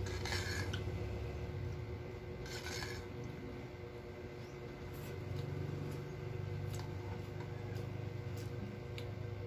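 Metal fork scraping and twirling black bean noodles in a takeout food tray, twice in short scratchy strokes, then a few soft clicks of chewing, over a steady low hum.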